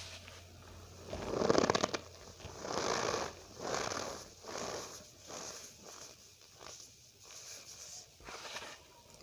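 Cornstarch powder being squeezed and pressed, giving squeaky, crunchy strokes about once a second; the loudest comes about a second and a half in, and the later ones grow fainter.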